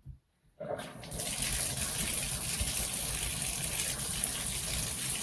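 Bathtub faucet turned on about half a second in, then water gushing steadily from the tub spout, which has a 3D-printed shower diverter fitted.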